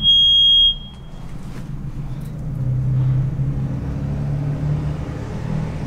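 A loud, high electronic beep lasting under a second from a handheld two-way radio. A steady low rumble follows and swells a little around the middle.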